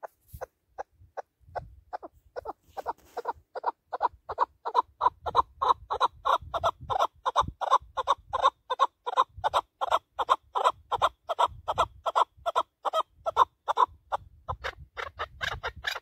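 Chukar partridge giving its rally call: a long series of sharp clucks that start slowly and quicken to about four a second, growing louder toward the middle.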